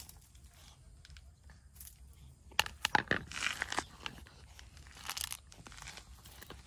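A cat crunching and chewing food from a bowl. About two and a half seconds in comes a cluster of sharp clicks, the loudest sounds here, as a bowl of fish is set down on the ground beside it, followed by a brief rustle.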